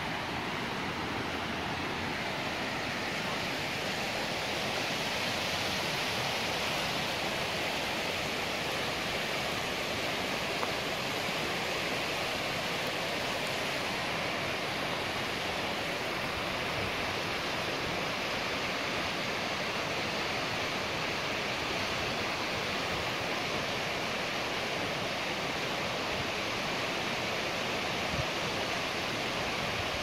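Steady rush of a shallow mountain stream running fast over a rocky, boulder-strewn bed, with water spilling over a weir upstream.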